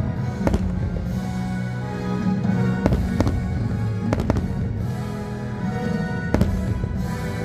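Fireworks bursting in a string of sharp bangs, about six in all, over fireworks-show music with long held notes.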